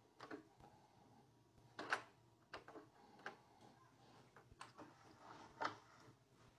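Scattered faint clicks and light knocks from handling a manual paper guillotine, with a stack of paper being squared against its back gauge and a hand at the machine's knob. The loudest knock comes about two seconds in.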